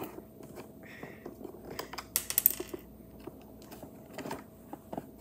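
Small clicks and taps of wooden and plastic crane-kit pieces being handled and fitted together, with a brief rattling clatter about two seconds in.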